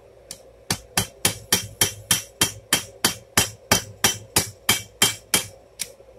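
Claw hammer striking a red-hot rebar tong half on an anvil, drawing the end out longer: a steady run of blows about three a second, each with a short metallic ring, starting after a few light taps and ending with a couple of lighter taps.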